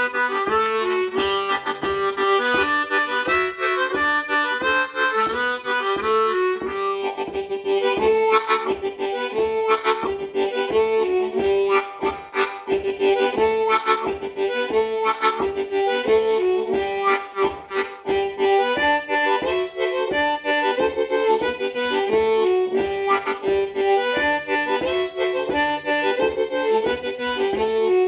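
Hohner Special 20 ten-hole diatonic harmonica in the key of G playing a simple melody, note after note, mixing blown and drawn notes, held in cupped hands.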